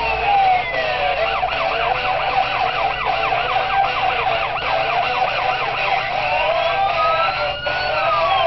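The Orlando Solar Bears goal horn sounding with a siren over a steady pitched drone. The siren wails slowly down and up, switches to a fast yelp of about four cycles a second for a few seconds from about a second in, then goes back to the slow wail.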